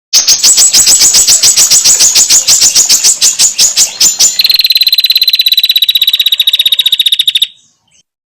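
Female prinia (prenjak) calls: a fast rattling series of sharp, high notes, about six or seven a second, then after about four seconds a faster, even, high trill of about fifteen notes a second that stops abruptly. This is the rattling 'ngetir' call of a female prinia.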